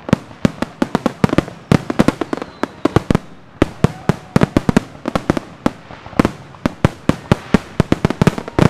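Aerial firework shells bursting in quick succession: a dense barrage of sharp bangs, several a second, each with a short echo.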